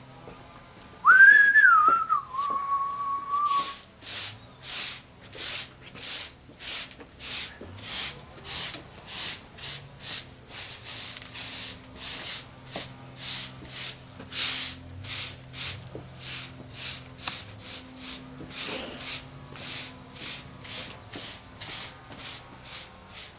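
A short whistled note that slides down and then holds for about two seconds. It is followed by steady scraping brush strokes, about two a second, from sweeping up yard clippings and trimmings.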